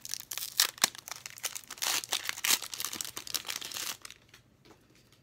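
Foil wrapper of a Pokémon trading-card booster pack being crinkled and torn open by hand, a dense crackle that stops about four seconds in.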